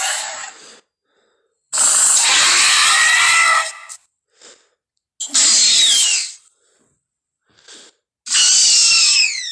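Jurassic World velociraptor (Blue) creature sound effects: a series of harsh, raspy screeches, one trailing off about a second in and three more about three to four seconds apart, the last two sliding down in pitch, with short faint breathy hisses between them.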